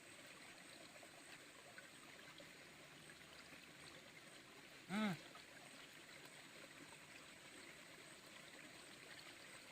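Faint steady flow of a small river, with one brief voiced exclamation about halfway through.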